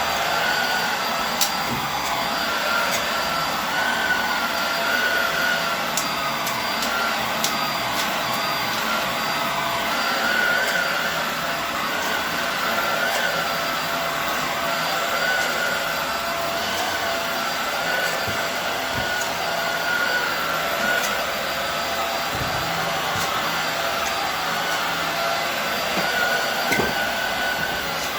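Hoover Air Steerable WindTunnel upright vacuum cleaner running steadily over a rug. Its motor whine wavers slightly in pitch, with a few faint sharp ticks.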